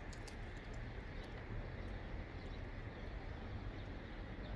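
Outdoor background: a steady low rumble with a faint even hiss above it and a few faint ticks.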